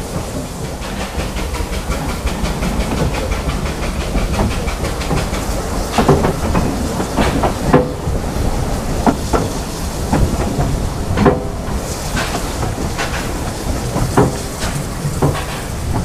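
Narrow-gauge steam railway carriage running along the track, heard from inside the open carriage: a steady low rumble of wheels on rail with irregular sharp metallic clanks and knocks, the loudest about six, eight and eleven seconds in.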